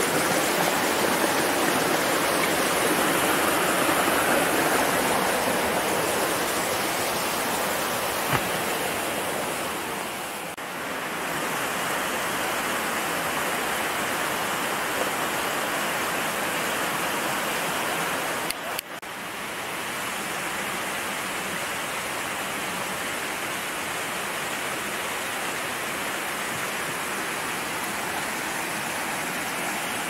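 Steady rush of flowing water from a stream or waterfall, with a short click and a brief dip in level about two-thirds of the way in.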